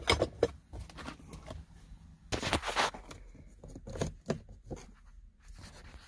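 Plastic centre-console trim of a 2012 VW Beetle being pried and pulled loose by hand and tool: a run of clicks, scrapes and knocks, loudest about two and a half seconds in.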